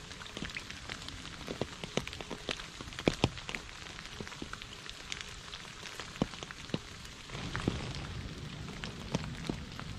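Rain falling on a shallow puddle and wet leaves: a steady hiss with many separate drops plinking into the water at irregular moments. The hiss grows a little louder about seven seconds in.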